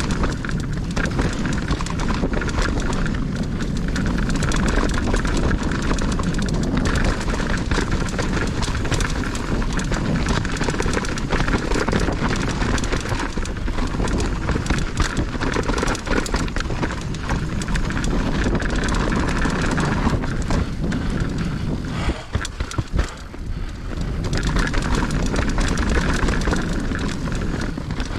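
Mountain bike riding down a dirt trail: a steady rush of wind and tyre noise, with rattles and knocks from the bike over bumps. It drops off briefly a little past twenty seconds in.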